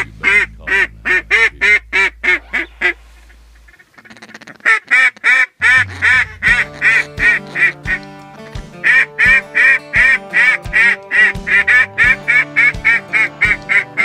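Rapid runs of loud duck quacks, about three to four a second, in two series with a short pause between them. A song comes in under the quacking about five and a half seconds in, with bass notes and a steady beat.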